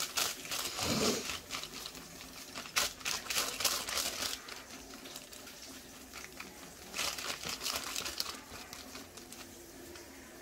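Aluminium hairdressing foil crinkling as it is handled and brushed with lightener under a section of hair. The crinkling comes in three bouts: at the start, around three to four seconds in, and again around seven to eight seconds in.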